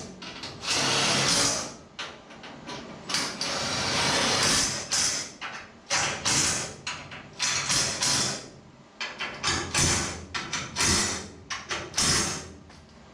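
Hand-tool work on steel parts: irregular scraping and clattering strokes, each from a fraction of a second to about a second and a half long.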